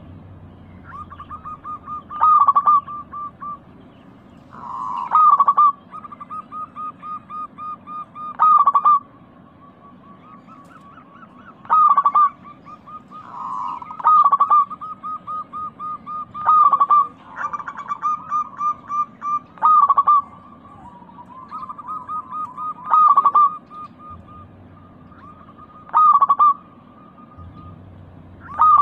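Zebra dove (perkutut) cooing: a loud opening note every two to three seconds, each followed by a quick run of short rhythmic coos, with phrases sometimes overlapping as if from more than one bird.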